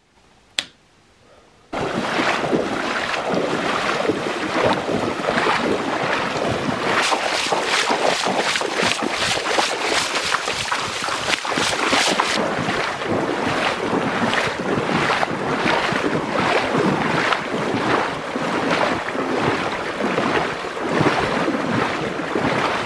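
Wading boots splashing through shin-deep flowing water, about two splashes a second, over a steady rush of water. It starts suddenly about two seconds in, after a near-silent moment with a single click.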